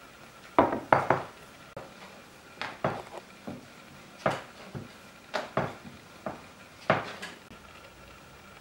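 Wooden rolling pin knocking and clacking against a wooden pastry board while thin rounds of dough are rolled out: about a dozen irregular knocks, some in quick pairs, fading out near the end.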